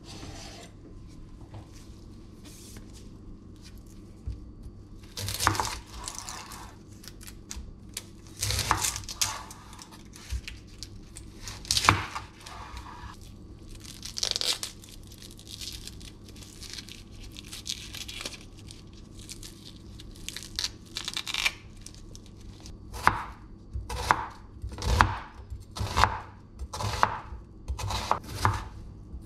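Dry onion skin crackling and tearing in irregular bursts as it is peeled by hand. In the last few seconds comes a chef's knife cutting through the onion, striking the wooden cutting board about once a second.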